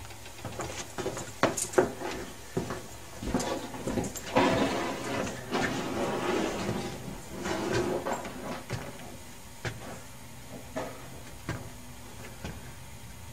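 Handling noise: irregular clicks, knocks and rustling, loudest in a scraping stretch about four to seven seconds in. Underneath is a faint steady low hum from the belt-driven generator machine running.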